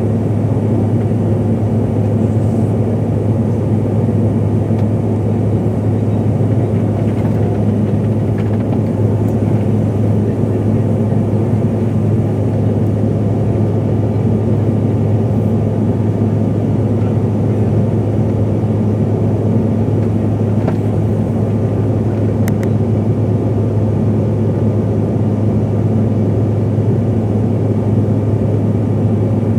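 Steady cabin drone inside a CRJ-700 regional jet: its rear-mounted turbofan engines and airflow make a constant low hum that does not change.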